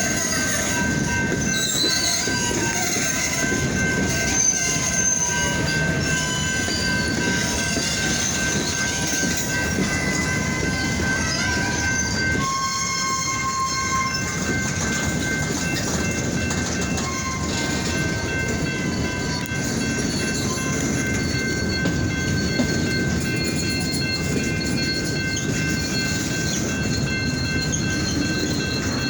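Freight train of the De Queen & Eastern Railroad rolling past, its rail cars making a steady rumble with thin high tones held above it.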